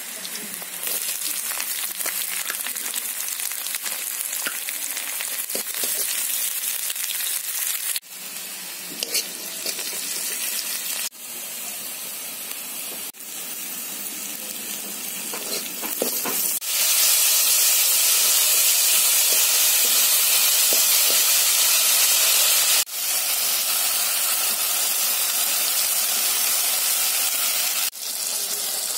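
Oil sizzling in a kadai as garlic, sliced onions and tomatoes fry for pizza sauce. The steady sizzle jumps in level at several sudden cuts and is loudest for about six seconds past the middle.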